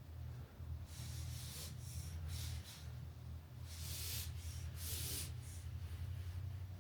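A series of soft rubbing and scraping strokes from hand work, the longest about four and five seconds in, over a steady low hum.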